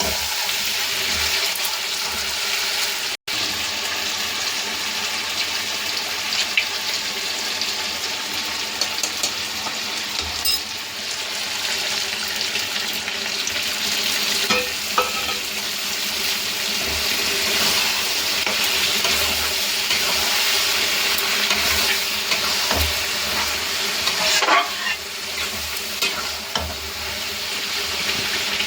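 Chicken skin and pieces frying in a pan, sizzling steadily, stirred with a spatula that scrapes and taps against the pan now and then.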